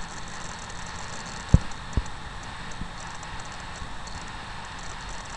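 Steady background hiss with two short low thumps about half a second apart, the first and louder a little over a second in.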